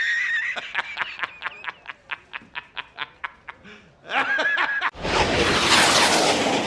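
Recorded sound effects from a LEGO light kit's sound module: a fast run of short, evenly spaced pulses, about five a second, that fades over about three seconds like a cackling laugh, then a brief wavering pitched sound. A loud noisy burst starts about five seconds in and slowly fades.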